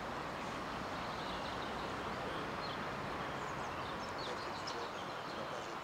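Outdoor ambience: a steady background rush with faint birds chirping now and then above it.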